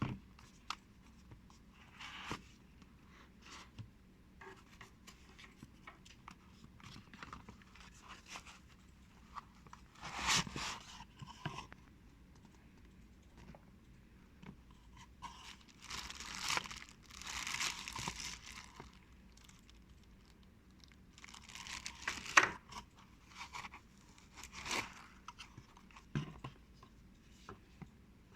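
Packaging being handled and rustled: irregular bursts of crinkling and tearing sounds with quiet stretches between them. A sharp knock comes about 22 seconds in.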